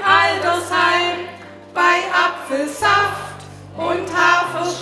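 Women's voices singing a drinking song over held bass notes from an instrumental accompaniment, with the bass note changing partway through.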